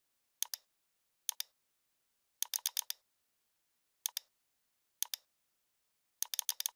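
Computer mouse clicking: short, sharp clicks in small groups, mostly pairs about a second apart, with quicker runs of four or five clicks around the middle and again at the end. Dead silence lies between the clicks.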